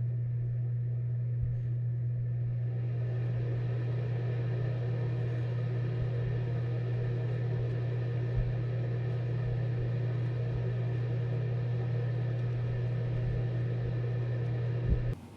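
AC Infinity RAXIAL S6 inline duct booster fan running with a steady low hum, as the higher whir of its airflow builds over the first few seconds. It cuts off suddenly near the end.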